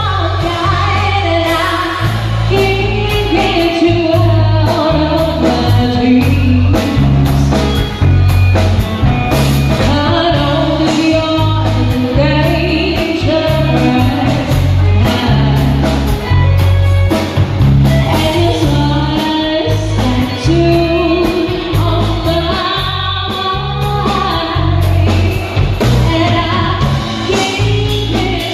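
Acoustic band playing a song live through a PA system: a singer over a bass line and a steady beat.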